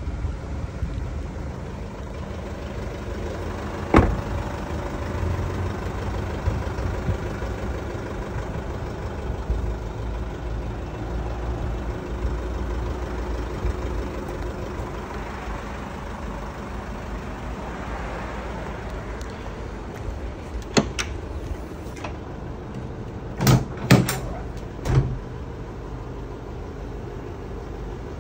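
Doors and latches on an Isuzu D-MAX ute being worked: a single sharp knock about four seconds in, then a cluster of sharp clicks and clunks near the end as the canopy and tailgate are opened. A steady low outdoor rumble lies underneath.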